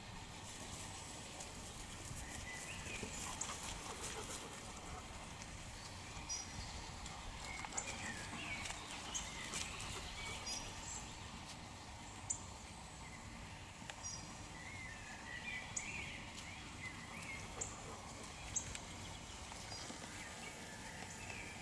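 Songbirds singing outdoors: warbling phrases come and go every few seconds, with short sharp high chirps scattered between them, over a steady faint background hiss.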